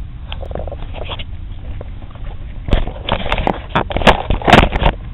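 Irregular clicks, knocks and rattles of plastic parts being handled as the blower fan control module and its wiring connector are worked loose, coming thick and loud in the second half over a low steady hum.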